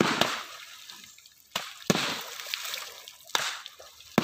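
Long bamboo poles slapping the surface of a shallow pond, about four sharp smacks each followed by splashing water. The water is being beaten to drive fish toward a net.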